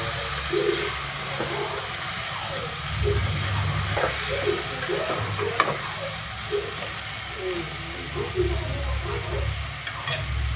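Food sizzling while frying in a pot, with stirring, a steady hiss.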